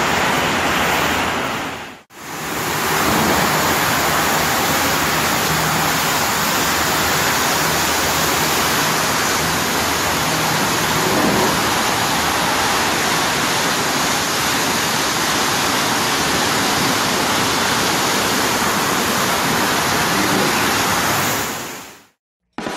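High-pressure water spray from a pressure-washer wand hissing steadily against a truck's body and engine bay, with a brief break about two seconds in and fading out near the end.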